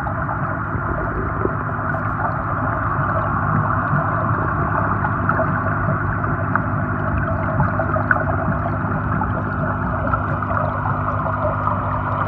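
Steady underwater hiss and gurgle of moving pond water, with a low steady hum underneath and scattered faint clicks, heard through a submerged camera.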